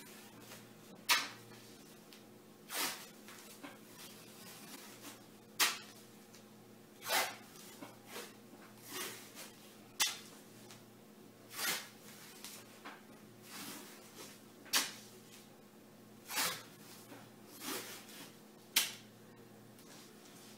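Athletic tape being pulled off the roll and torn into strips around a taped ankle: over a dozen short rips, roughly one every second or so, some drawn out a little longer. A steady low electrical hum runs underneath.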